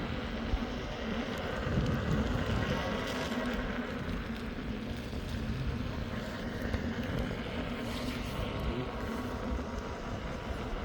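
Steady riding noise from an Inmotion V12 electric unicycle in motion: a low rumble of the tyre rolling on the road under wind on the microphone, with a faint thin motor whine.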